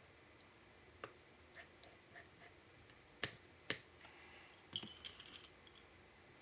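Light clicks and taps of small metal parts and a precision screwdriver on an open MacBook Air: scattered faint ticks, two sharper clicks a little over three seconds in, then a brief faint metallic tinkle near five seconds.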